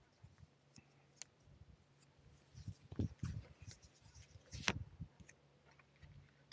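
Faint, scattered clicks and knocks over a low steady hum, with a few louder knocks about halfway through and the loudest about two-thirds of the way in.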